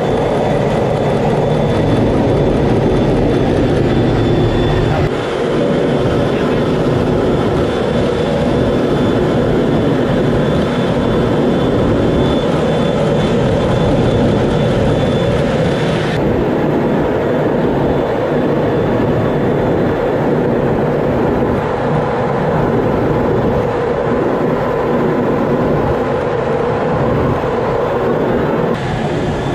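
Steady noise of jet engines and rushing air heard inside a Blue Angels F/A-18 Hornet cockpit in formation flight. The sound changes abruptly in character about 5 and 16 seconds in.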